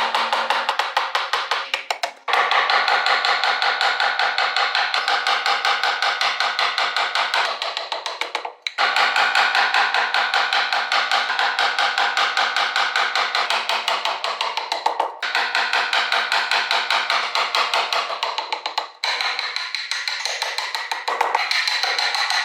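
A hand tool working wood in rapid, evenly spaced strokes, tapping and cutting many times a second. The stretches of strokes are broken by brief drops about 2, 8.5, 15 and 19 seconds in.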